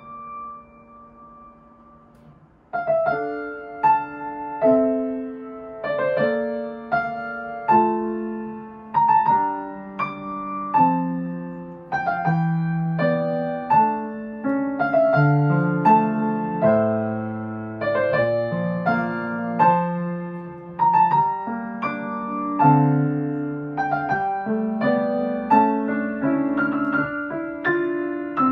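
Yamaha acoustic piano played by hand: a chord rings out and fades, then about three seconds in a steady melody over a lower chordal accompaniment begins, with notes struck about once a second.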